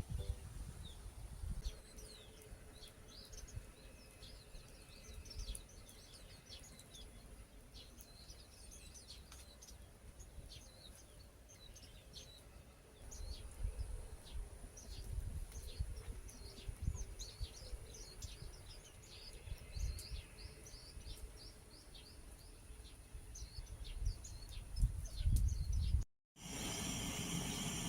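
Small birds chirping, many short, quick calls overlapping, with low rumbles of wind or handling noise now and then.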